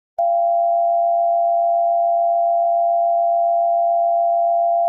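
Emergency Alert System attention signal: a loud, steady two-note electronic tone that starts abruptly just after the start and holds without change.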